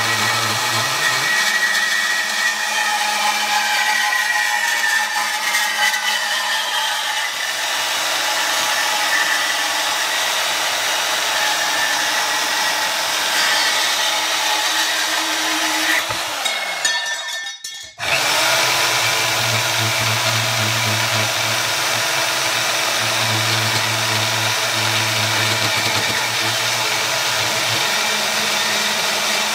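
Bauer 10-amp variable-speed portable bandsaw running and cutting through an aluminium extrusion tube, a steady motor sound with the blade rasping in the metal. About two-thirds of the way through the sound falls away and breaks off for a moment, then the saw is running and cutting again.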